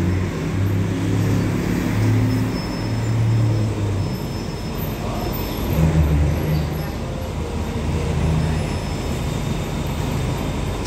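Diesel engine of the train standing at the platform idling: a low, throbbing hum that swells and eases every few seconds.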